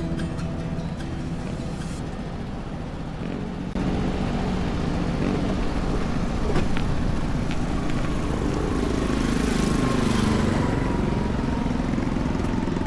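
An engine running steadily, louder after a sudden step a few seconds in. Around nine seconds in its pitch sags and then climbs back, as if briefly loaded.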